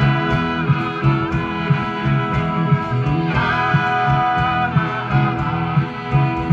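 Band music: a guitar-led instrumental passage with sustained, held notes over a steady beat.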